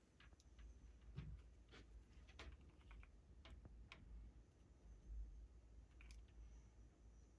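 Faint, irregular light clicks and taps of small objects or tools being handled at a work surface.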